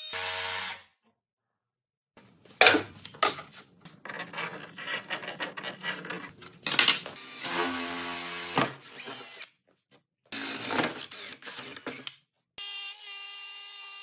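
Workshop tool sounds in short clips that cut off abruptly: a handheld power drill's motor running in bursts and whining steadily near the end, with sharp knocks and rattling of wood pieces in between.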